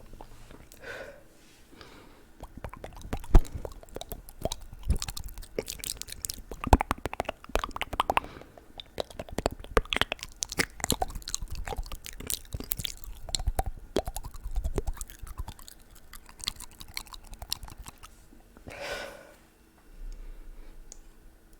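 Close-miked ASMR mouth sounds: wet tongue clicks, lip smacks and pops from a mouth moistened with a sip of water, coming as a stream of irregular sharp clicks.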